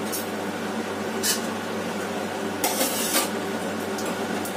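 Steady low machine-like hum of room background, with short bursts of hiss about a second and a half in and near the start, and a longer one around three seconds in.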